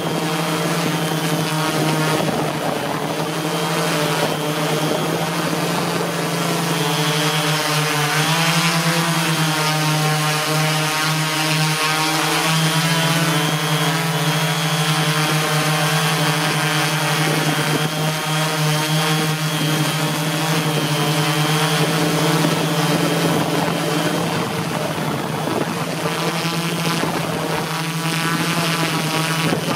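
Align M480L multicopter's electric motors and propellers droning steadily in flight, a pitched hum with overtones that waver as the motor speeds adjust.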